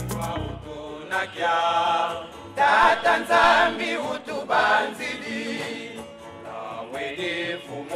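A group of male voices singing together to acoustic guitar accompaniment, in phrases that swell and fall. As it begins, the last beat of an intro jingle dies away.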